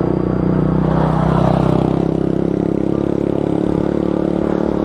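A motorcycle engine passing and pulling away up the hill, over the steady hum of the electric fat bike's motor and tyres on asphalt; the noise swells about a second and a half in, then settles into a steady drone.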